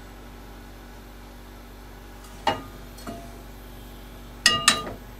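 Frying pan of oil heating on a gas stove, with a steady low hum under it. A knock about halfway through and a short metallic clink with a brief ring near the end, typical of the pan or a utensil meeting the metal grate.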